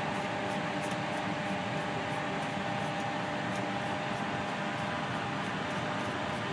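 Steady whooshing noise of a fan or air-conditioning, with a faint constant hum in it.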